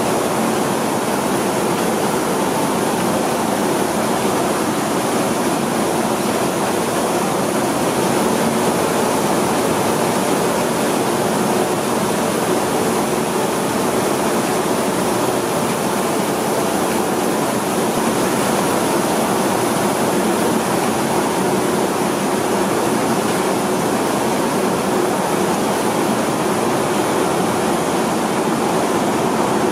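Rice mill machinery running with a loud, steady, unbroken rushing din.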